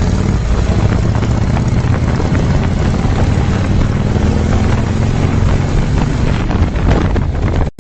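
Loud, steady rumbling vehicle noise with wind buffeting the microphone, cutting off abruptly near the end.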